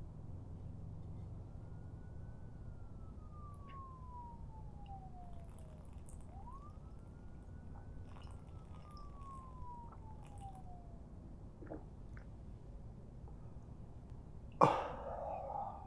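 A siren wailing faintly twice, each wail rising quickly and then falling slowly. Near the end comes a sudden loud hit with a brief noisy tail.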